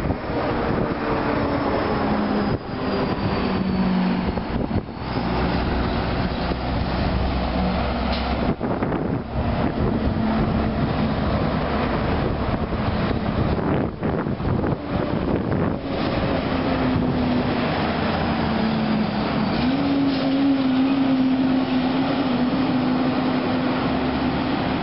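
Heavy trucks' diesel engines under load as they pull away and pass one after another, the engine note rising and stepping in pitch as the drivers change gear, over steady tyre and road noise.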